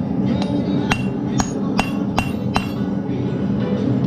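Hand hammer striking a hot steel bar held in tongs on an anvil, about six blows with a short metallic ring, upsetting the bar to gather mass in its centre. The blows stop about two and a half seconds in.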